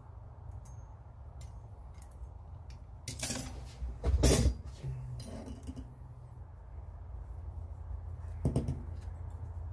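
Metallic clatter of a brass cleaning rod being laid down on a workbench among other cleaning tools, loudest about four seconds in, with a shorter knock near the end. A steady low hum runs underneath.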